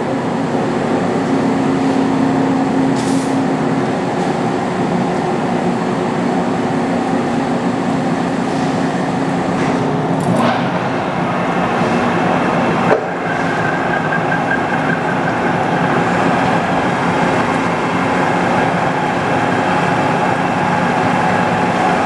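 Large engine lathe running under power, a boring bar cutting inside a workpiece held in the four-jaw chuck: a steady, loud machine hum with several steady tones, and a brief knock about thirteen seconds in.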